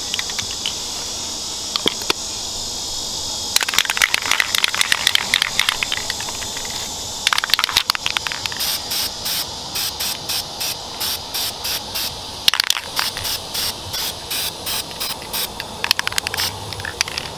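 Aerosol spray-paint can spraying through a stencil. It gives a couple of longer hisses, then a run of short spurts, a little under two a second, for most of the second half. Insects buzz steadily underneath.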